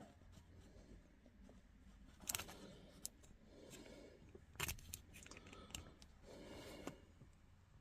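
Faint handling sounds from working on a manual shift knob: a few sharp clicks, with soft rustling and scraping in between.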